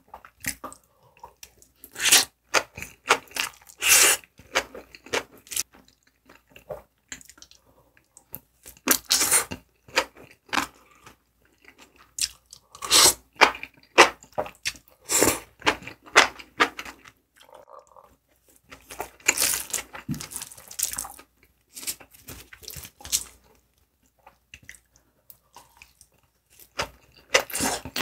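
Close-miked mukbang eating: a person chewing and biting big mouthfuls of spicy noodles. The mouth sounds come in irregular clusters of sharp clicks with short pauses between, and go quieter for a few seconds near the end.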